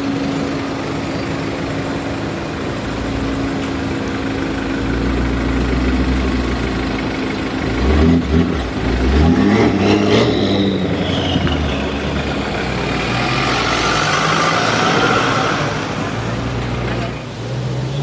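BMW M5 F10's twin-turbo V8 accelerating hard, its engine note rising to its loudest about eight to ten seconds in and then fading away, amid city traffic noise.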